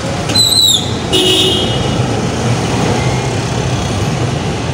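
Street traffic: engines of passing cars, trucks and motorcycles run steadily. A short high-pitched squeal comes under a second in, then a brief toot just after.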